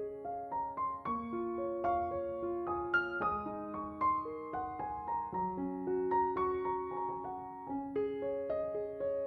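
Background music: a gentle piano melody, note by note, with no other sound.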